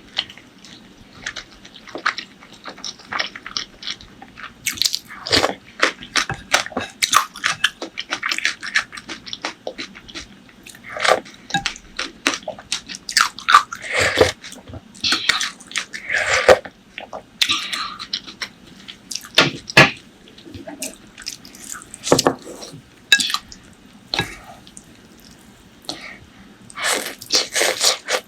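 Close-miked eating: a person chewing and biting food, with irregular mouth clicks and smacks and a few brief pauses.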